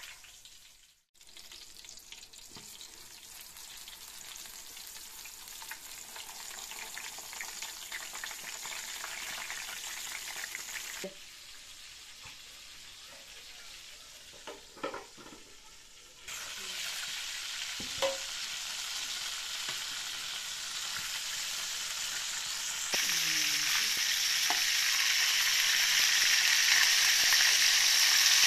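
Halved eggplants frying in hot oil in a pan: a steady sizzle that steps up in level several times and is loudest near the end. A few short clicks in the middle.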